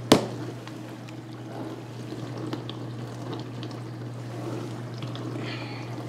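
Whirlpool-built Kenmore dishwasher running, water splashing and pouring inside its stainless steel tub over a steady low hum. A single sharp click at the very start.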